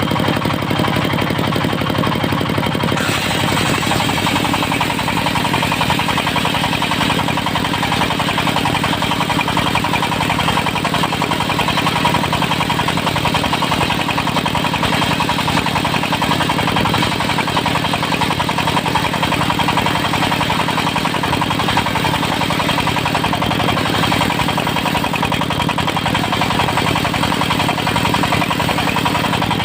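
Diesel engine of a portable circular sawmill running steadily. A brighter hiss joins about three seconds in and holds.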